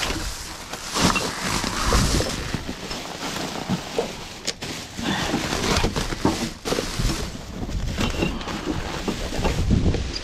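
Rummaging through rubbish in a dumpster: irregular rustling and knocking as bags, paper and containers are handled and moved about.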